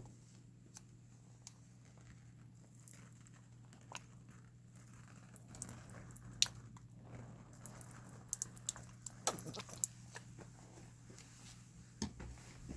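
Scattered sharp clicks and short rustles, as of things being handled, over a steady low hum. They come more often from about halfway through.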